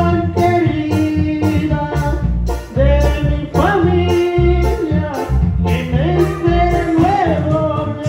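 Live Latin keyboard-band music: electronic keyboards over a steady drum beat and heavy bass, with a lead melody of held notes that slide up into pitch.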